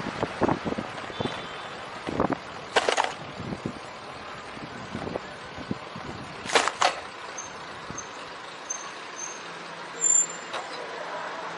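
Street traffic heard from a moving bicycle, with scattered knocks and rattles. Two short, loud hisses come about four seconds apart, followed by a run of short high beeps.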